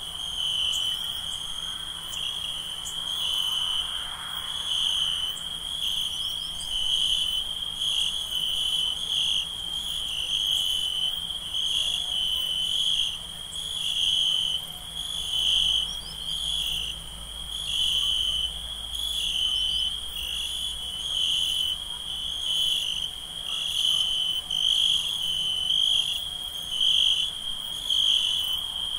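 Crickets chirping in a steady night chorus: a continuous high trill with a higher chirp pulsing about once a second.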